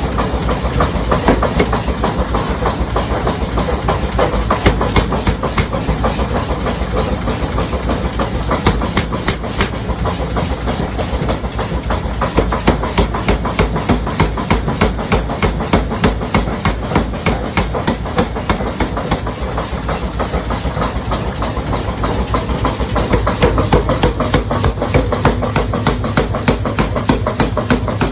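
Metalworking machinery running with a rapid, steady train of knocks over a continuous hiss.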